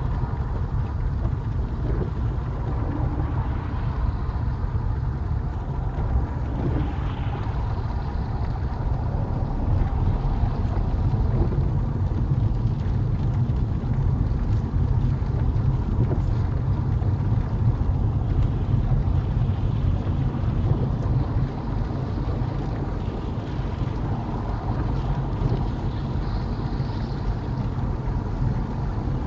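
Steady low rumble of road and engine noise inside a small car driving on a wet motorway, with rain and spray hissing on the windscreen and faint scattered ticks of drops.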